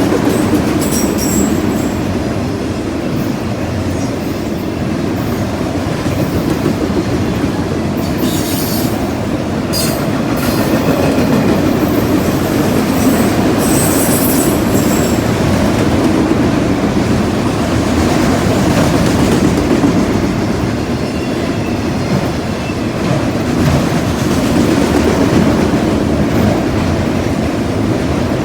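Freight train cars rolling past with a steady rumble of steel wheels on rail, broken a few times in the first half by short high-pitched wheel squeals.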